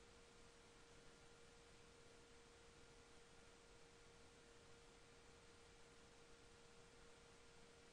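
Near silence: a faint steady hiss with a thin constant tone under it, the bare noise floor of the recording.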